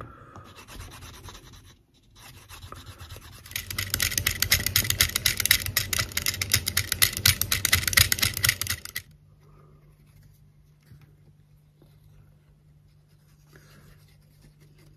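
A leather edge rubbed with a wooden burnisher, then from about four seconds in a metal-tipped hand tool scratching rapidly back and forth over the face of the leather for about five seconds, roughing it up for glue. After that, only faint small handling sounds.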